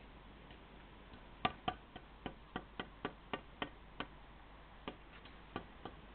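A quick run of about a dozen sharp clicks, three to four a second, then a pause and three more spaced clicks near the end.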